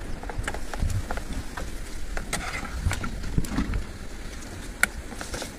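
A metal spatula scraping and tapping in a frying pan over a wood fire, with scattered sharp clicks over a low rumble.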